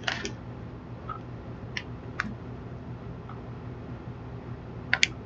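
A few faint clicks and taps from handling small objects, two close together near the end, over a low steady hum.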